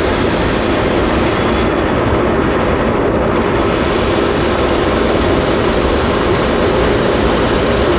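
Steady rush of wind and road noise from a car driving fast on a highway, heard from inside the car.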